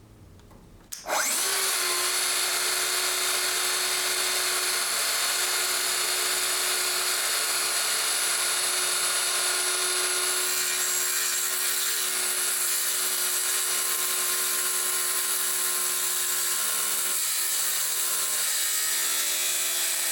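Festool HKC 55 cordless circular saw starting up about a second in and running steadily with a held motor whine while cutting a board freehand along a scribed line, without its guide rail.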